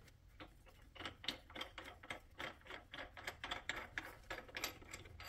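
Faint, irregular clicking and ticking, about three or four clicks a second, as the freshly loosened crankshaft pulley bolt of a Mercedes M272 engine is turned out by hand.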